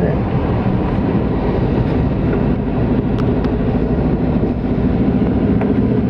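Steady engine hum and road noise of a car driving at an even speed, heard from inside the cabin.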